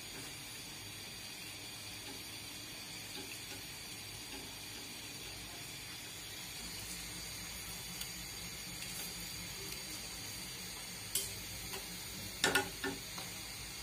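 Hot oil sizzling steadily in a steel wok as flower pitha batter fries on an iron flower-shaped mould, with a few sharp clicks near the end.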